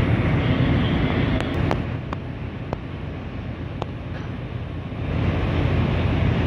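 Wind buffeting the microphone over a steady low rumble, easing for about three seconds in the middle, with a few faint clicks.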